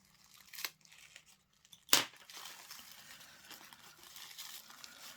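Packaging being opened by hand: a small click, then a loud sharp snap about two seconds in, followed by steady crinkling and rustling of wrapping.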